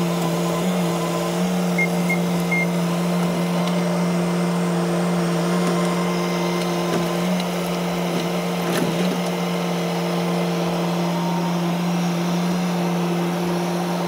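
Bobcat S570 skid steer's diesel engine running at a steady pitch as the machine works, its bucket pushing and lifting an uprooted tree's root ball.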